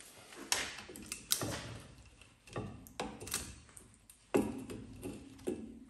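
Hand tools working at a seized handbrake cable on a drum brake: about six sharp metal knocks and clicks, irregularly spaced, the loudest about four seconds in.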